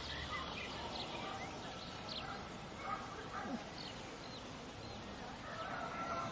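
Faint background ambience with scattered short, high bird chirps.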